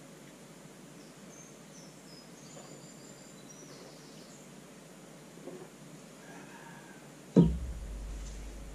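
Quiet room tone, then about seven seconds in a single sharp knock with a low boom dying away: a pint glass set down on a small pub table.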